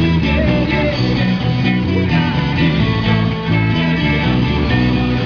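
Live rock band playing amplified, with electric guitars strumming over bass and a steady pulse.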